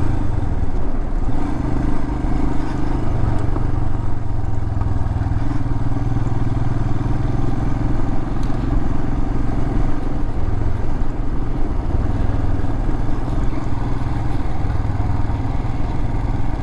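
Motorcycle engine running at a steady, low pitch while riding along a gravel road.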